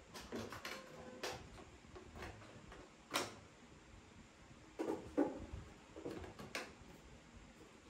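Plastic vacuum cleaner parts being handled and fitted together: a handful of separate clicks and knocks, the loudest about three seconds in.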